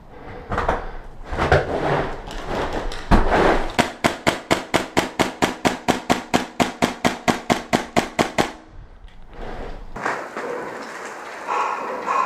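Airsoft gas blowback rifle fired in a rapid string of about two dozen evenly spaced shots, some five or six a second, after a few scattered knocks and one louder thump.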